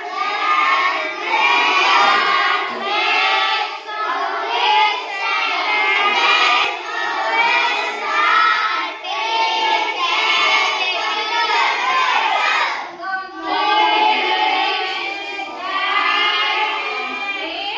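A whole class of children's voices together in chorus, with a brief pause a little past the middle.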